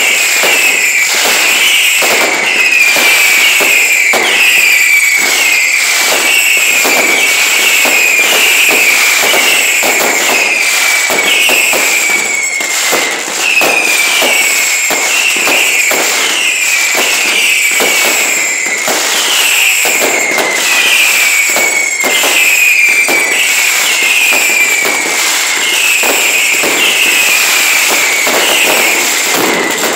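A continuous fireworks barrage: a dense stream of bangs and crackles, with whistling fireworks sounding about once a second, each whistle falling in pitch.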